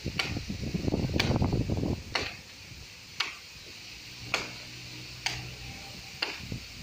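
Sharp knocks about once a second, a blade chopping into a tree trunk, with wind rumbling on the microphone during the first two seconds.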